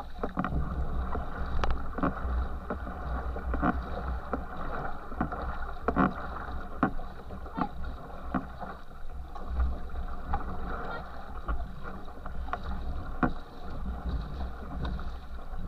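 Racing canoe moving fast through river water: steady rushing and churning of the wake at the stern, with short sharp splashes every second or so as water sprays over the stern-mounted camera. A low rumble of water buffeting the microphone runs underneath.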